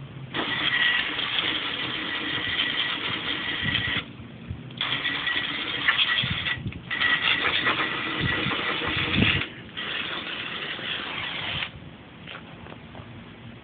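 Water hissing out of a hose nozzle in four bursts of two to four seconds each, washing down rusted drum-brake parts, over a low steady hum.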